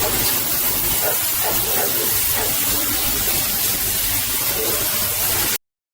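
A steady hissing noise with faint voices under it, cut off abruptly to silence near the end.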